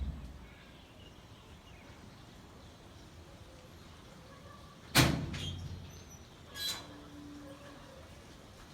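Faint outdoor ambience, broken about five seconds in by a loud, sharp thump with a short low boom after it and a lighter knock right behind it. Another knock comes about a second and a half later.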